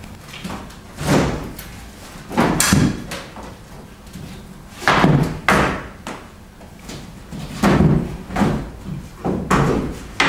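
Wooden-framed paintings being shifted and knocked against one another: a series of about six knocks and thuds a second or two apart.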